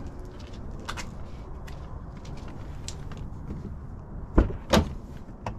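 Driver's door of a 2007 Hummer H2 being opened by its outside handle: two sharp clunks close together, about four and a half seconds in, as the latch releases and the door comes open.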